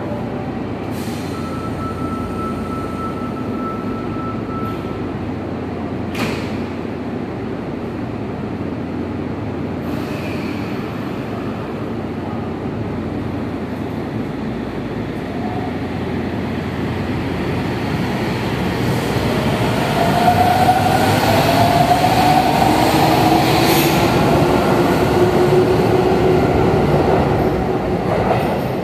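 Sendai Subway Namboku Line 1000-series train pulling out of an underground platform. A steady hum with a few clicks while it stands, then from about two-thirds of the way in a rising motor whine and running noise as it accelerates, loudest near the end, which then fades as it enters the tunnel.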